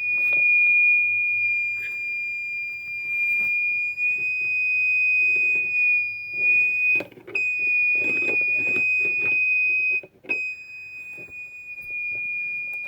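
A piercing, steady high-pitched electronic screaming tone from a touch-triggered gadget, sounding whenever it touches the purple area. It cuts out briefly twice, about seven and ten seconds in, with faint handling noise underneath.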